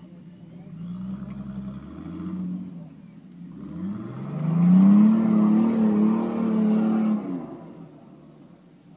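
Nissan 4x4 SUV's engine revving hard under load as it climbs a steep dirt slope, in two surges. The second surge rises in pitch, holds loud and steady for a few seconds, then drops off near the end as the truck reaches the top.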